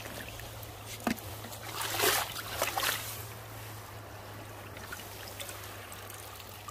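Shallow stream trickling over pebbles. A few knocks and scuffs sound over it during the first three seconds, then the water runs on steadily.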